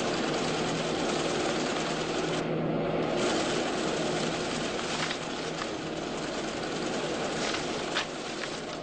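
Loud, steady mechanical noise with a low hum, like machinery or an engine running. It is broken by a few faint clicks and cuts off sharply at the end.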